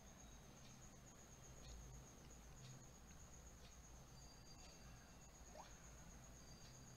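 Near silence: room tone with a steady low hum and a faint high-pitched whine, and faint ticks about once a second.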